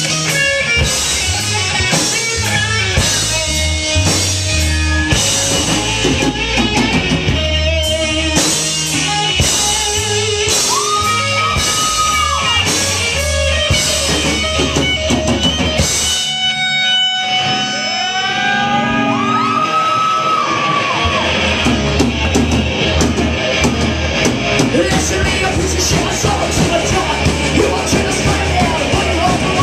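A punk-metal band playing live and loud, with electric guitars, a drum kit and sung or shouted vocals. About halfway through, the low end drops out for a couple of seconds, then the full band comes back in.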